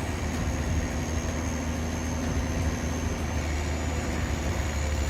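A homemade wood-cutting machine running steadily: a low hum with a steady mid-pitched tone and a faint high whine that shifts slightly upward about three and a half seconds in.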